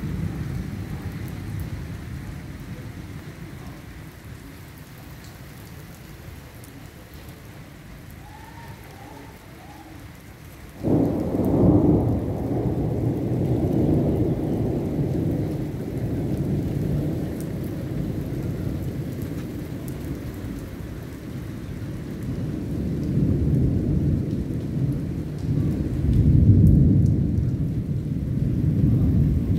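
Steady rain, then a sudden clap of thunder about eleven seconds in that rolls on as a long, low rumble and swells again near the end.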